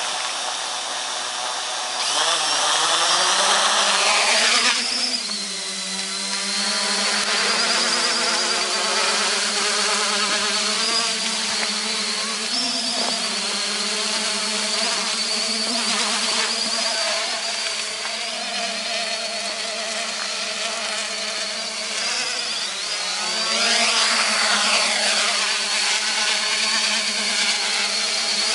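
Quadcopter's four Multistar 2213 935kv brushless motors and propellers buzzing. The pitch climbs as it throttles up and lifts off about two to four seconds in, then it hovers with a steady buzz that wavers in pitch as the motors correct, louder again near the end.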